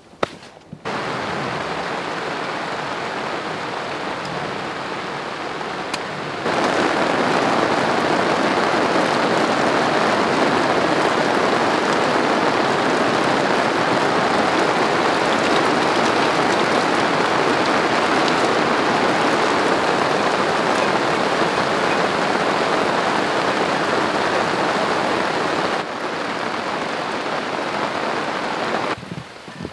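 Heavy downpour of rain: a dense, steady hiss that gets louder about six seconds in and eases near the end.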